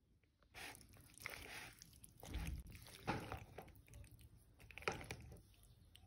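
Metal spoon stirring a creamy dressing through cooked macaroni in a plastic bowl: wet mixing and scraping in several irregular strokes, starting about half a second in and dying away near the end.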